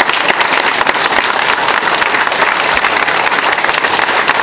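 Lecture-theatre audience applauding: sustained clapping from many hands in thanks at the end of a talk.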